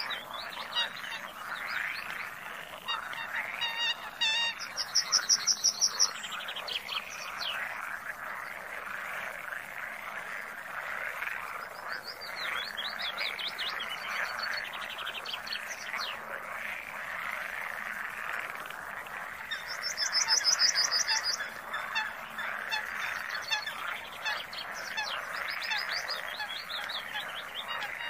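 Flock of parrots chattering continuously, many calls overlapping. Two louder bursts of fast, high trilled calls stand out, about five seconds in and about twenty seconds in.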